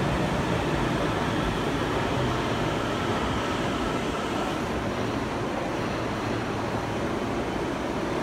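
Tokyo Metro Namboku Line 9000-series electric train pulling in along the platform and slowing to a stop, with a faint whine that dies out about four seconds in. The running noise then eases to a steady hum from the standing train.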